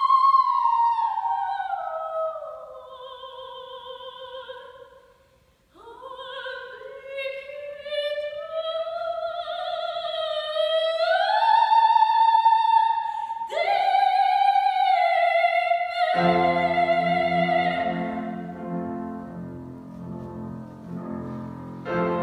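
Classical soprano singing an operatic art song with wide vibrato, accompanied by a grand piano. A long phrase falls away and breaks off about six seconds in; a new phrase climbs to high held notes, and near the end the voice stops and the piano plays the closing chords alone.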